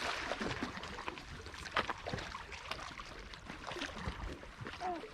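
Small lake waves lapping and sloshing against a rocky cliff edge, with soft irregular splashes.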